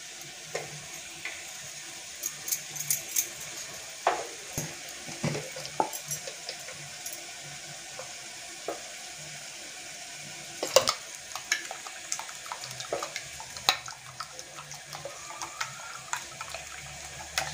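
A spoon clinking and tapping against a steel bowl and a plastic jar, with one sharper clink midway, over a steady background hiss. Near the end the spoon beats raw eggs in the steel bowl, a run of quick small taps with wet sloshing.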